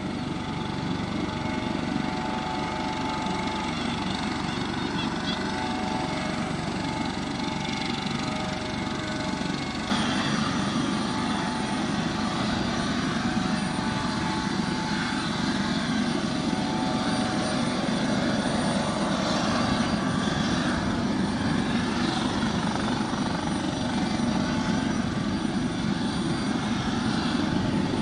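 Helibras HM-1 Pantera (AS565 K2) twin-turbine helicopter running on the ground, a steady turbine whine with many tones over a rushing rotor and engine noise. It gets louder in a step about ten seconds in.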